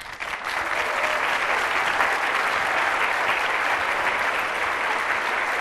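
Large audience applauding, dense and steady, swelling up in the first half second.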